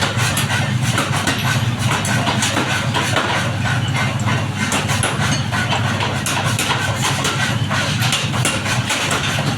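Forging machinery running with a steady low drone, with frequent irregular metallic knocks and clanks over it.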